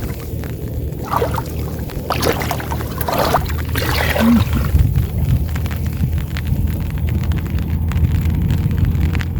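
Small engine running steadily with a low drone, with water splashing several times in the first few seconds.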